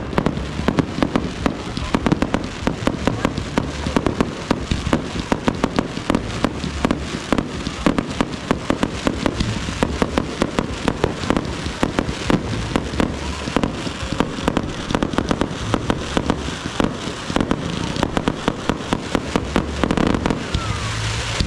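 Aerial fireworks going off in rapid succession: a dense, unbroken barrage of overlapping bangs and crackles, several reports a second.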